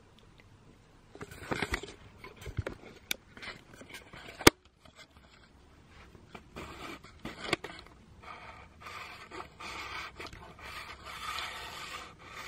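Handling noise of a handheld camera being swung about over a bed, with scraping and rustling of fabric and a single sharp knock about four and a half seconds in.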